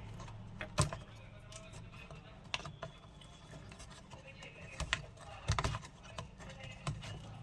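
Scattered small clicks and taps of hand tools and components on a circuit board as blown electrolytic capacitors are worked loose and pulled out, with a cluster of clicks a little past halfway, over a faint steady low hum.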